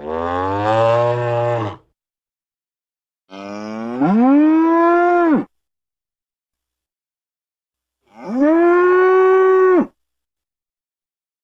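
Cow mooing three times, each moo about two seconds long with silence between; the second moo rises in pitch at its start before holding steady.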